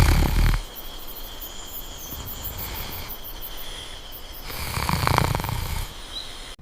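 Snoring: a low, rattly snore fading out about half a second in, then a second long snore starting about four and a half seconds in. A steady high-pitched trill runs behind it.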